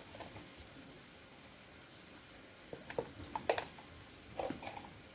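Mostly quiet as salt is sprinkled from a plastic tub into a pan of vegetables, with a few faint clicks and taps in the second half.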